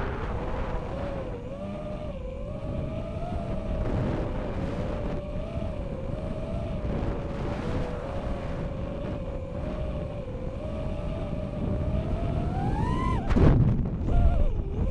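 Racing quadcopter's four brushless motors (Racerstar BR2306S 2700 kV, three-blade 5045 props) whining in flight, recorded onboard, the pitch wavering up and down with the throttle. Near the end the whine climbs sharply at full throttle and breaks into a brief loud rushing buffet.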